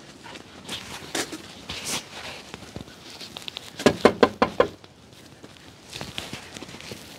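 Footsteps on a dirt lane, then a quick run of about six knocks on a wooden door about four seconds in.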